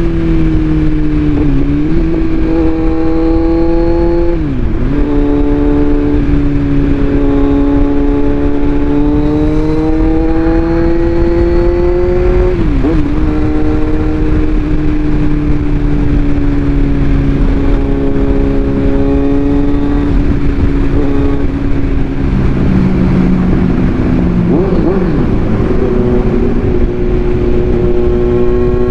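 Kawasaki Z900 inline-four, with its under-engine pre-muffler ('bread box') removed, running loud and steady under way. Its note holds or creeps up in pitch, and four times it dips briefly and settles a little lower, the pattern of gear changes.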